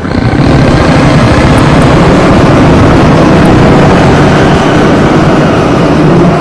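Harsh noise music: a loud, unbroken wall of heavy distortion with no break or rhythm.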